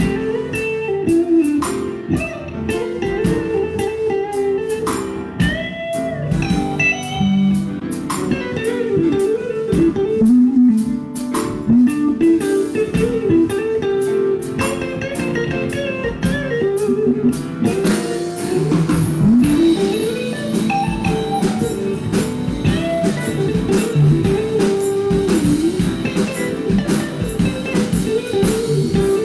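Instrumental music led by guitar over a steady drum beat, with no singing; the sound fills out in the upper range about two-thirds of the way through.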